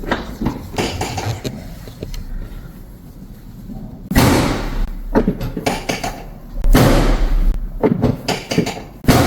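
Chiropractic drop-table sections thudding down during an adjustment to level the patient's uneven pelvis: lighter knocks at first, then three loud thuds about 4, 6.5 and 9 seconds in.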